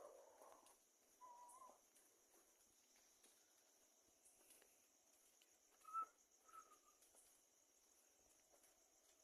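Faint night chorus of crickets, a steady high-pitched trill, with a few short whistle-like calls: one about a second in and two about six seconds in, the first of those the loudest.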